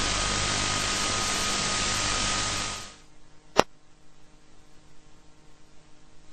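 Loud, steady static hiss with a faint steady tone in it. About three seconds in it drops to a low hiss, broken by a single sharp click.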